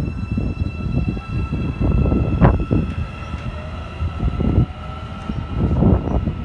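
Electric metro train pulling out and moving away: low rumble and clatter of the wheels on the rails under a steady high electric whine, with one sharp knock about two and a half seconds in.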